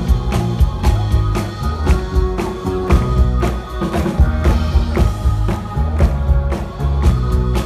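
Live pop-soul band playing: a drum kit keeps a steady beat under bass and held keyboard or guitar tones.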